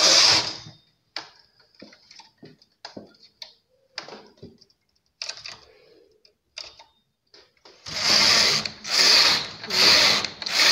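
Knitting machine carriage swept across the needle bed: one pass ends just after the start, then after a stretch of faint clicks and taps as the needles are moved by hand for a decrease, four passes run back and forth about a second apart near the end, knitting four rows.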